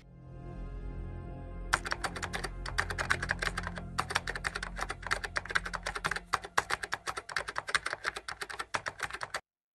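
Rapid computer keyboard typing, a dense run of quick key clicks with a brief pause about four seconds in, starting about a second and a half in and cutting off abruptly just before the end. Background music with a steady low drone runs underneath.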